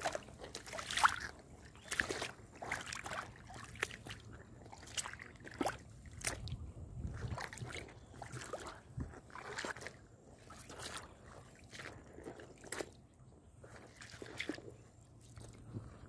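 Shallow river water flowing and babbling over pebbles and rocks, with irregular small splashes and gurgles.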